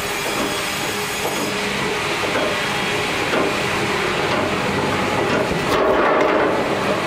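Fimaksan log unscrambler and chain log conveyor running: steady metallic clanking and rattling of chains and steel frame over a constant motor hum. It gets louder about six seconds in as a log is brought over onto the conveyor.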